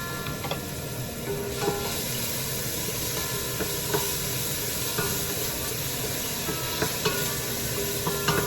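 Chopped onions sizzling in hot olive oil in a pot; the sizzle grows a little louder about a second in. A spoon stirring knocks against the pot now and then with short clicks.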